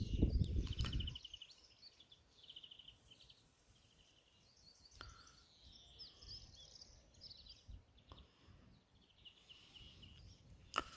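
Small birds singing faintly, with high chirps and short trills scattered throughout. A low rumble fills the first second, and there is a sharp click near the end.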